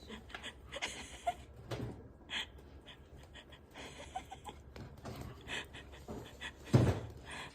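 Small dog panting in short noisy breaths, with scattered light clicks and scuffs and one louder knock near the end.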